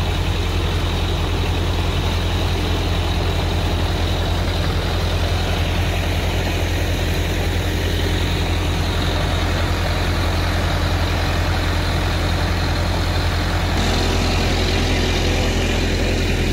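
Sonalika 60 tractor's diesel engine running steadily under load, turning a PTO generator that powers two water-pump motors: an even, continuous drone with a deep hum.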